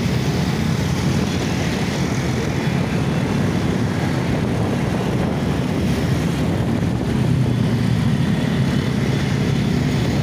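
Many small motorcycle engines running together in a slow-moving convoy: a steady, even drone.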